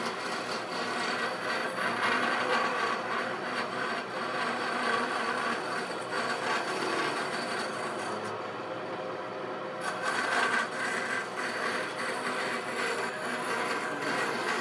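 Bandsaw running and cutting a wooden board along a curved line: a steady motor hum under the continuous rasp of the blade through the wood.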